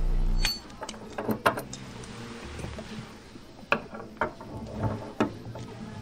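A steady mechanical whir cuts off about half a second in. Then comes a scatter of sharp metal clicks and knocks as a safe-cracking jig of brass and aluminium brackets and a steel cylinder is fitted over a safe's dial.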